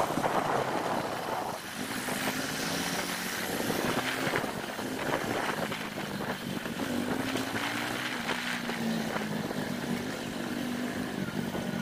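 Motorcycle engine heard from on board while riding, its pitch rising and falling several times with the throttle, over a steady rush of wind and road noise.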